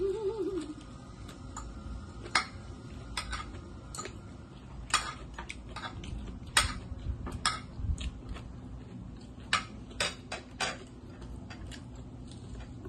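Eating at a table: about a dozen sharp, irregularly spaced clicks and taps from chewing and from a spoon against dishes.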